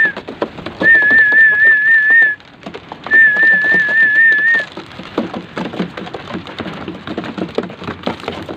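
A warbling whistle sounds three times, each about a second and a half long, over a steady patter of quick taps and clicks from homing pigeons pecking at corn kernels; after the third whistle only the pecking clicks remain.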